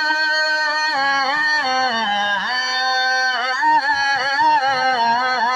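A male voice singing a naat in a long, drawn-out melismatic line. One note is held steady for about a second, then the voice slides and ornaments through several notes.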